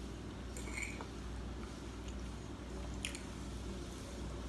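Soft, wet chewing of pasta and meatballs, with a few light clicks about a second in and again near three seconds, over a low steady hum.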